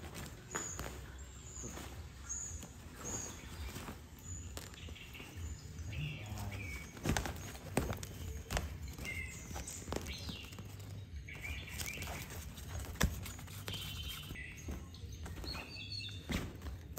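A cat scrabbling and batting inside a crinkly pop-up fabric play tunnel, giving scattered rustles, crackles and sharp taps, a few of them louder, with several short high chirps in between, over a low steady hum.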